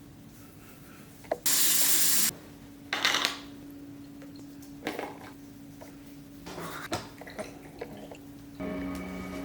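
A tap runs briefly at a sink, a short hiss of water about a second and a half in, followed by a few shorter splashes and small clinks of handling over a steady low hum.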